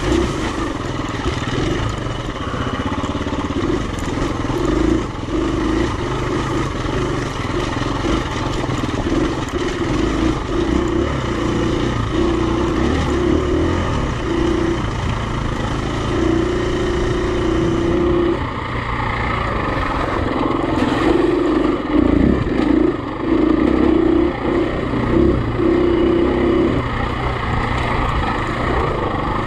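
Single-cylinder four-stroke enduro dirt bike engine running under load on a trail ride, its note rising and falling as the throttle is worked.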